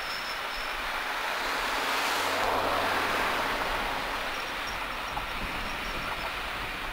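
Passenger coaches of a steam-hauled train rolling along the track, a steady rushing noise that swells a little about two to three seconds in.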